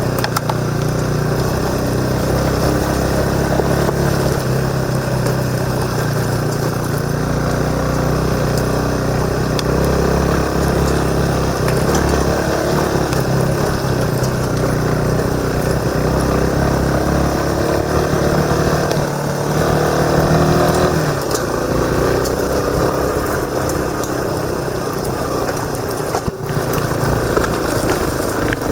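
Motorcycle engine running while riding, its note shifting with the throttle: it climbs about twenty seconds in, then drops off, heard through a helmet-mounted camera.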